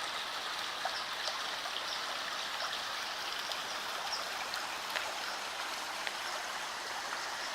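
Creek water running steadily over rocks, a constant rushing noise with scattered small splashes and drips on top.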